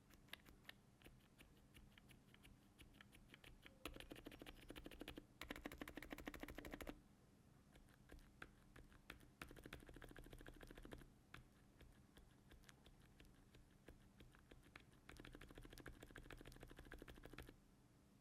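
Typing on a mechanical keyboard fitted with silent, dampened switches: irregular soft key clicks, with several runs of fast typing along the way.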